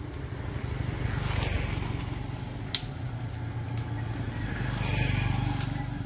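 Small motorbikes passing along the road, their engine sound swelling as each goes by, about a second in and again near five seconds. A single sharp click sounds near the middle.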